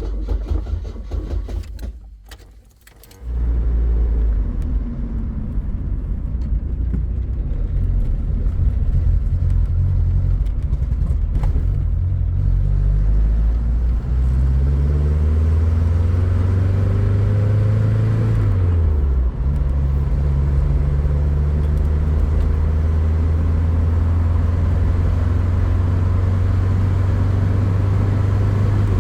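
Chevrolet Opala car engine, cold, running roughly, then dying away about two seconds in. About a second later it catches again and keeps running with a steady low drone. Its revs rise and fall a few times in the middle and drop again near the end.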